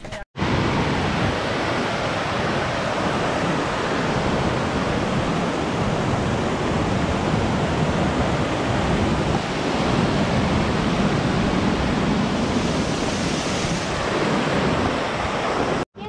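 Steady roar of rushing water from a waterfall, an even noise across all pitches that cuts in just after the start and stops abruptly just before the end.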